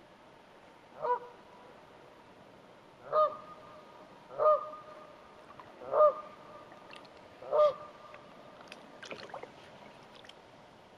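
A goose honking five times at uneven intervals, each honk a short, loud call. Faint clicking and rustling follows near the end.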